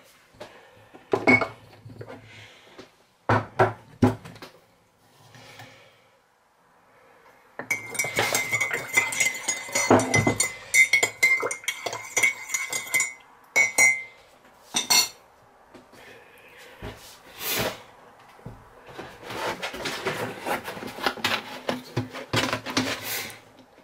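Crockery and cutlery handling: a ceramic mug and a spoon clinking, with knocks of things set down on a hard counter. A dense run of clinks and rattles comes in the middle, with scattered knocks before and after.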